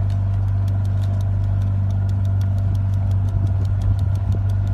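Motorboat engine running steadily: a deep, even hum with a fast, regular faint ticking on top.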